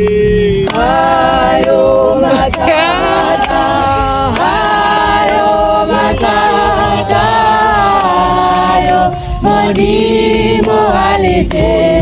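Several voices singing a song together in chorus, held sung notes with a short break about nine seconds in.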